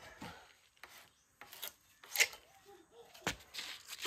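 Firewood being cut by hand: a few sharp, irregular knocks of a blade striking wood, with faint scraping between the blows.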